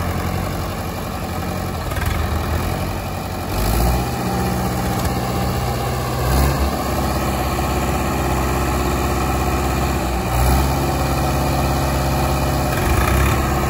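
Mahindra and Swaraj diesel tractor engines running together under load while pulling a stuck, loaded sugarcane trailer. The engine note rises and settles several times, with brief surges about 4, 6.5 and 10.5 seconds in.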